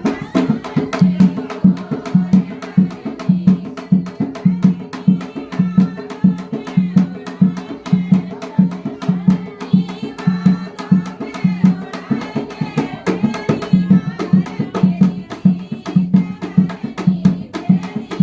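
Background music with a quick, steady percussion beat: deep drum pulses about twice a second under faster clicking hits and a wavering melody.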